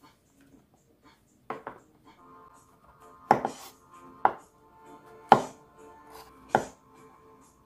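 Kitchen knife chopping button mushrooms into quarters on a bamboo cutting board: about five sharp knocks of the blade on the board, roughly a second apart. Soft background music plays underneath.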